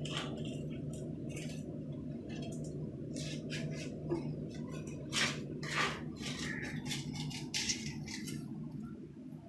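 Paint scraper scraping old, kerosene-softened silicone sealant off the edge of a granite countertop in a series of short, irregular scrapes, over a steady low hum.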